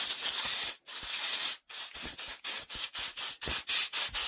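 Compressed-air blow gun hissing as it blows dirt out of a small engine's carburettor parts: two longer blasts, then a quick run of short bursts.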